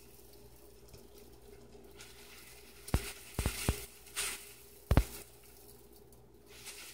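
Raw cane sugar being poured and weighed on a kitchen scale: a few sharp knocks and taps of the bag and container, the loudest about five seconds in, with a brief rustling hiss about four seconds in.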